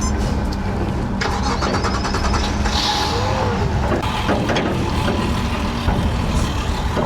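A boat's motor running steadily at low speed, as when backing a boat away from others, with a short stretch of rattling and knocking about a second in.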